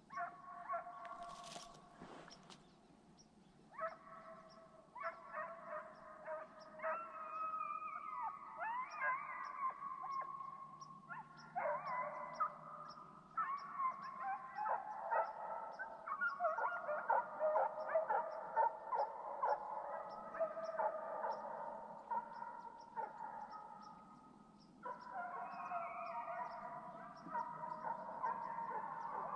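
A pack of deer hounds baying and howling as they run a deer, several voices overlapping, with short lulls about three seconds in and again later.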